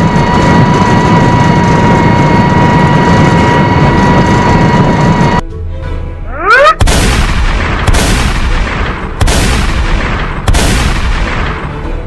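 Cartoon cannon-fire sound effects: a short rising whistle, then four loud blasts about 1.3 seconds apart, each fading away. Before them, a steady loud rushing noise with a held high tone cuts off suddenly about five seconds in.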